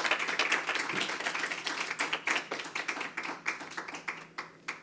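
Audience applauding at the end of a talk. The clapping thins to a few last scattered claps near the end.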